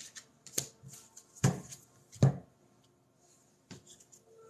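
Tarot cards being handled on a table: light clicks and taps of the cards, with two louder knocks about three quarters of a second apart near the middle.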